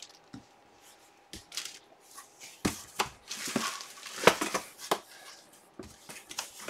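Handling noise from a plastic bag and cardboard box: scattered taps, clicks and rustles, sparse at first and busier from a few seconds in, with one sharp click near the middle.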